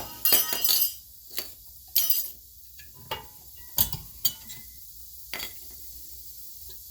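Small metal brake-pad retaining clips and pads clinking as they are handled at a rear brake. A quick cluster of clinks comes in the first second, then single clinks every half second or so, ending about five and a half seconds in.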